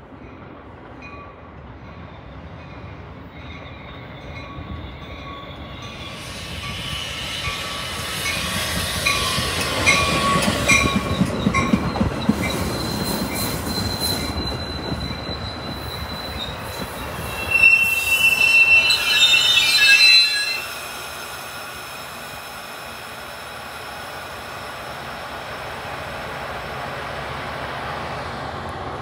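Metra commuter train going by on the rails. The rumble builds to its loudest about ten to fourteen seconds in. The wheels squeal loudly for a few seconds past the middle, then the train settles to a steadier, quieter running sound.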